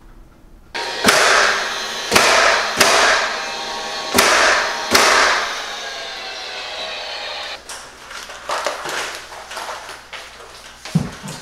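A run of sharp knocks against barnwood boards being fastened to the wall, about five over four seconds, each ringing on in a bare room. Lighter knocks and taps follow near the end.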